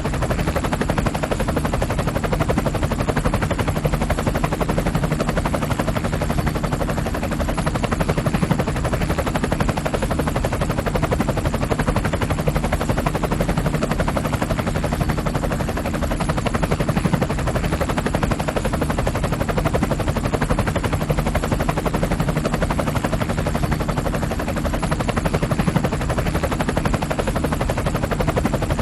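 Helicopter sound effect from the Voice Changer Plus app: a steady, rapid chopping like rotor blades, heaviest in the low end.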